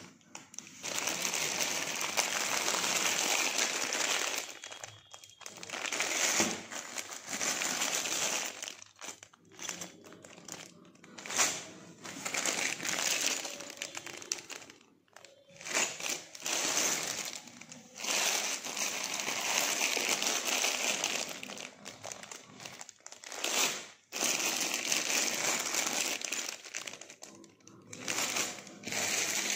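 Clear plastic bags crinkling as they are handled and shifted about, in rustling bursts of a few seconds with short pauses between.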